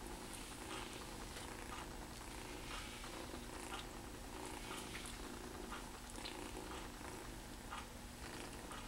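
Kitten purring steadily, with faint short scratchy strokes of a metal-toothed grooming brush through its fur.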